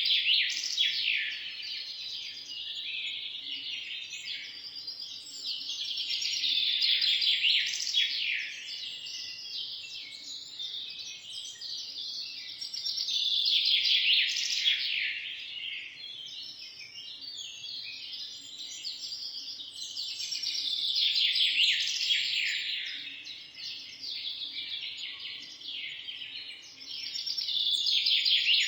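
Birds chirping and singing: a dense chorus of high, quick chirps and trills that swells louder and fades back about every seven seconds.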